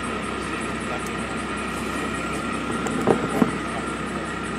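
Steady background machine hum with faint steady tones, and about three seconds in two sharp small metal clicks a third of a second apart as a screwdriver and screws are handled at the aluminium furler extrusion.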